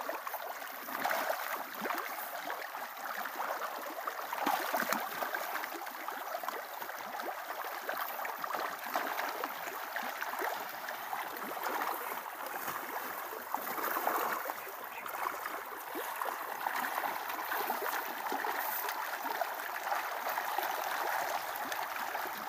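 Steady splashing and churning of pond water as a crowd of tilapia feeds at the surface.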